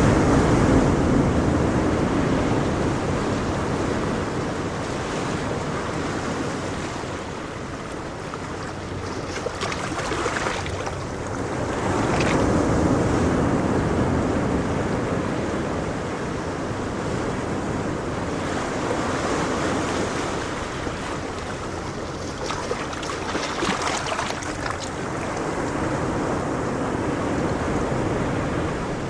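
Ocean surf: waves breaking and washing in as a steady rushing hiss that swells and ebbs every several seconds.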